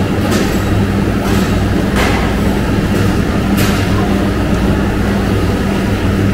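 Steady, loud hum and rumble of meat-processing line machinery, such as the conveyor belt drive, with a few sharp knocks and clicks at irregular moments.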